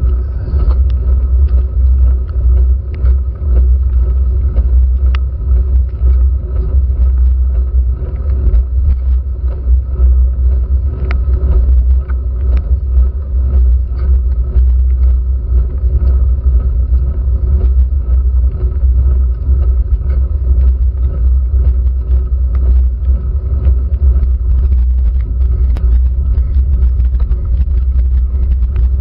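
Steady low rumble of a bicycle's handlebar-mounted GoPro Hero3 shaken by the road on a slow climb on wet tarmac. Many small ticks are scattered through it, from raindrops hitting the camera.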